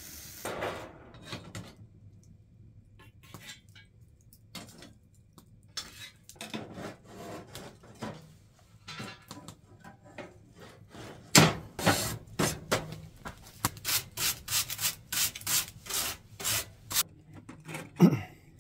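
A metal tool scraping and knocking in a wood stove: scattered light scrapes and clicks at first, then a run of sharp scraping strokes about two a second for around six seconds, and one last loud stroke near the end.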